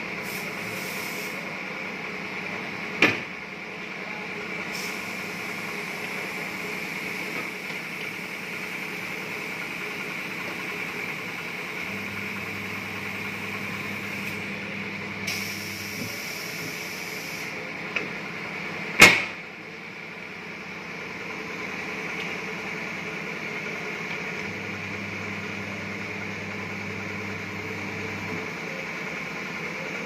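Tyre-changer machine working a large off-road tyre. The turntable motor hums on twice, for about four seconds each time, and there are brief hisses of air. Two sharp bangs stand out, one about three seconds in and a louder one a little past halfway.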